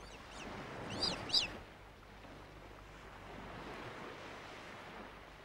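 Steady wash of surf, with a few short, high, arching bird chirps in the first second and a half.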